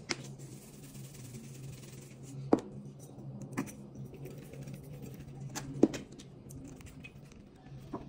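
A handful of sharp clicks and taps from spice shaker jars and an oil bottle handled over a glass baking dish, over a low steady hum.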